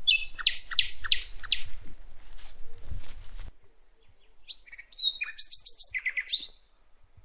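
Small birds chirping: a quick run of about five falling chirps in the first second and a half, then another burst of varied, rapid chirps and trills around five to six seconds in. A faint low rumble underneath cuts off about three and a half seconds in.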